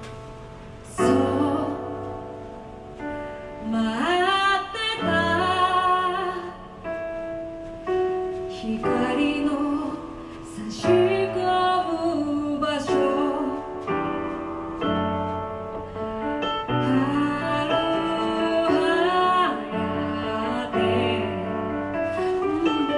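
Female vocalist singing a slow ballad to piano accompaniment, with a few sharp high strokes about 1, 11 and 13 seconds in.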